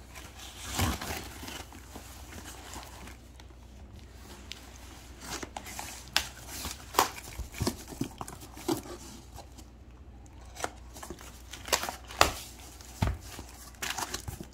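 Cardboard shipping box being opened by hand: packing tape and wrapping torn and crumpled, with scattered sharp knocks and clicks as it is handled.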